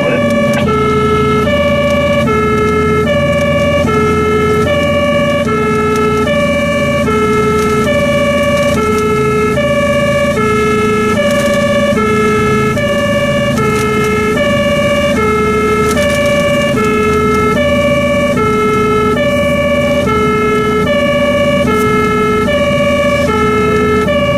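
German fire engine's two-tone siren (Martinshorn) sounding continuously, alternating evenly between a lower and a higher tone about every 0.7 seconds. It is heard from inside the cab, over the steady drone of the truck's engine.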